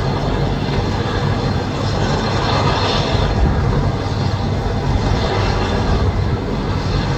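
Mil Mi-17 helicopter running loud and steady, with a deep, even rotor drone under the rushing noise of its twin turboshaft engines.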